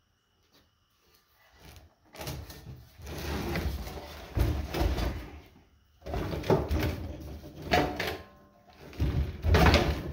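Heavy steel motor armature being turned and shifted on a wooden workbench by its shaft: irregular scraping and clunking in several runs, starting about two seconds in, with a few short metallic clinks from its copper winding bars.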